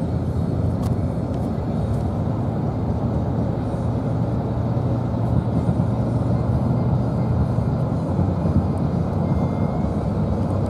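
Steady low rumble of road and engine noise inside the cabin of a moving car, holding even throughout.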